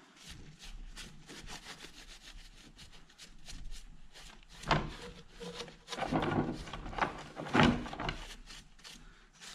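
A towel damp with brake cleaner wiping over the intake manifold in quick, repeated back-and-forth rubbing strokes, heavier for a few seconds in the middle.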